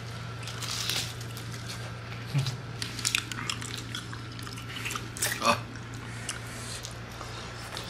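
Scattered light clicks, taps and chewing sounds of people eating and handling food, over a steady low hum.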